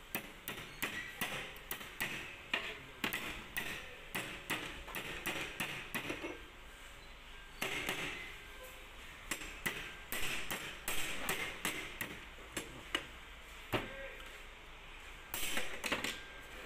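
Irregular light metallic clicks and clinks, several a second, as snap-ring pliers and steel rings are handled on a truck transmission's gear assembly during reassembly.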